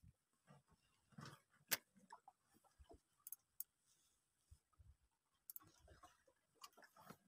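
Near silence broken by a few faint, irregular clicks and ticks.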